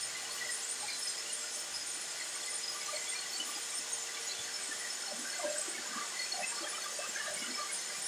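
Soap extruder machine running with a steady, hiss-like whir, with a few faint small knocks and scrapes in the middle as soap is worked into its hopper.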